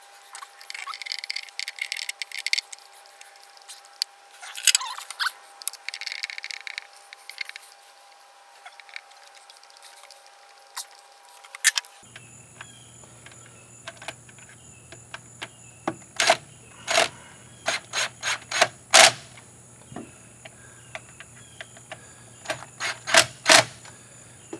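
Hand work on the outboard: scattered sharp clicks and clinks of tools and small parts being handled and fitted, with bouts of rustling and scraping in the first half.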